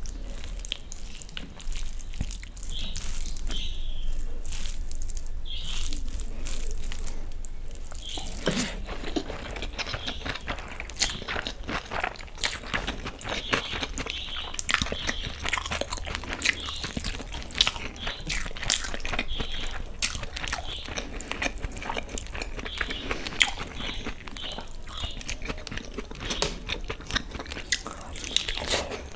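Close-up eating sounds. First, fingers squish and mix fried rice through Manchurian gravy. From about eight seconds in, dense wet chewing and crunching of mouthfuls of chicken fried rice and chicken Manchurian.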